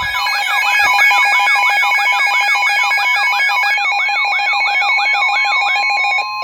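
Emergency Alert System attention signal: a steady two-tone alarm with a rising chirp repeating over it about four times a second, the warning tone that precedes a broadcast weather alert. The chirps stop near the end.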